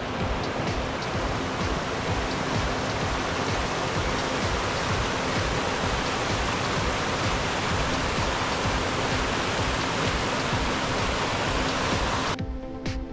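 Steady, loud rushing water, with background music faintly underneath. The water sound cuts off abruptly near the end, leaving only the music.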